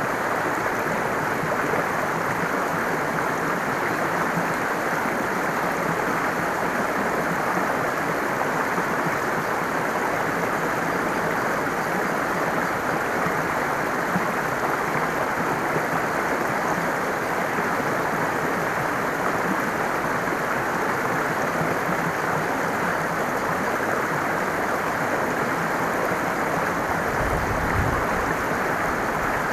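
Steady rushing water of a stream, running evenly without a break. A short low rumble comes near the end.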